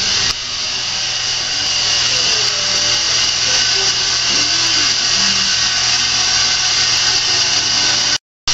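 Loud, steady whirring noise, like a small motor blowing air, that cuts out for a moment near the end.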